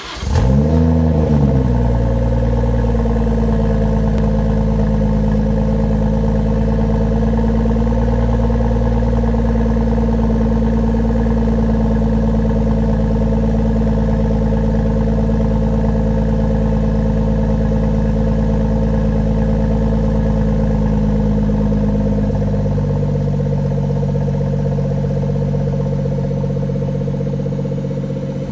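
BMW 340i's 3.0-litre turbocharged inline-six, breathing through a Dinan aftermarket exhaust (midpipes and muffler), starting up: it flares up in revs and falls back within the first two seconds, then idles steadily. About 22 seconds in the idle drops to a lower, steady speed.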